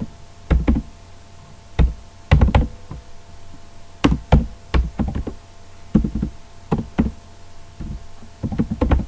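Keystrokes on a computer keyboard, typed slowly in small uneven clusters with pauses between them, each key a short dull knock.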